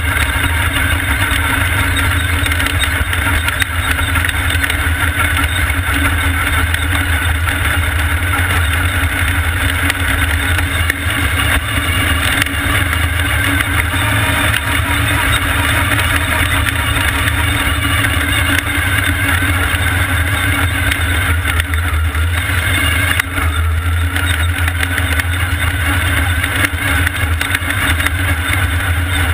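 Vintage supermodified race car's engine running steadily at low speed, heard loud and close from a camera mounted on the car.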